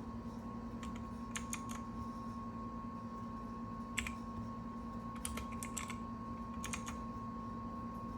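Keys of a Redragon Fizz K617 mechanical keyboard clicking in short irregular bursts of a few keystrokes at a time, over a steady electrical hum.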